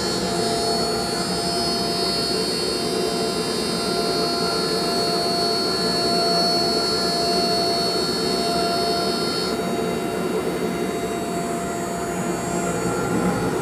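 CNC router spindle running with a single-flute end mill, milling the perimeter of a thick aluminium plate: a steady high whine over continuous cutting noise. Part of the high whine drops out about nine and a half seconds in.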